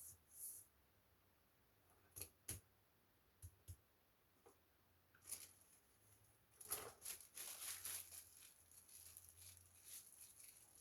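Faint handling noise from laptop parts being worked on: a few separate clicks, then scraping and rustling for several seconds from about the middle on.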